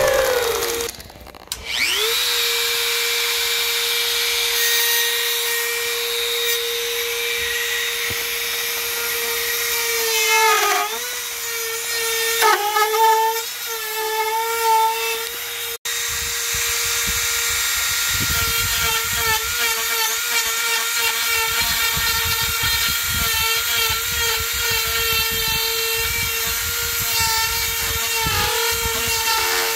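Dremel rotary tool's motor whining at a steady high pitch, stopping briefly and spinning back up about two seconds in. Its pitch dips several times as the bit bites into the wood, and from about halfway a rough grinding rasp of the bit carving wood runs under the whine.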